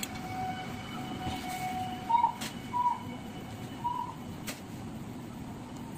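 Ghugni, a dried yellow pea curry, simmering and bubbling in a kadai. A faint steady tone runs over it for the first couple of seconds, and three short high chirps come about two, three and four seconds in.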